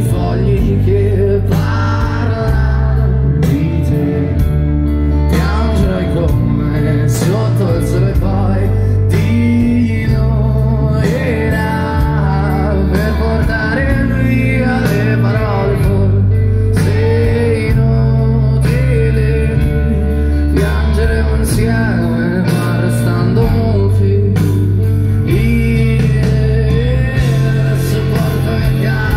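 Live rock band playing a slow song over a stadium PA, heard from within the crowd: electric guitar and singing over sustained bass notes that change every couple of seconds, with drums.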